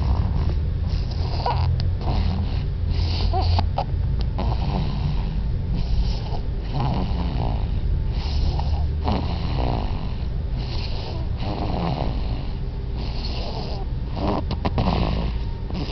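A baby snoring loudly, one snore every second or two.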